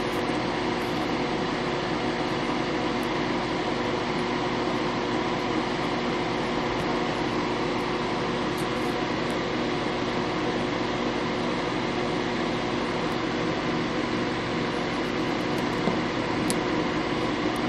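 Electric fan running with a steady hum: several steady tones over an even rush of air.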